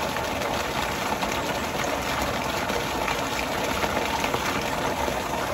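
River water rushing, a steady, even noise.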